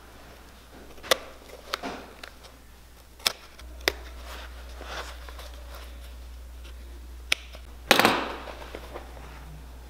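A snap-off utility knife blade slicing through the stitching along the edge of a leather boot upper, giving a few sharp, scattered clicks as the threads part. A louder knock on the wooden workbench comes about eight seconds in.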